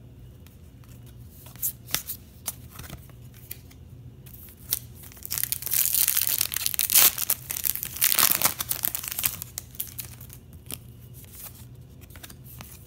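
A foil trading-card pack being torn open by hand: a few seconds of loud crinkling and tearing about halfway through. Before it come a few light clicks as cards are handled.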